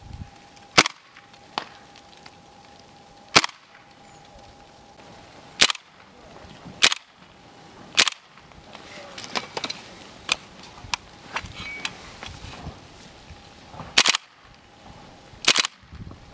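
GHK GK-74 (AKS-74) gas blowback airsoft rifle firing single shots, about seven sharp cracks at irregular intervals, each with the clack of the reciprocating bolt.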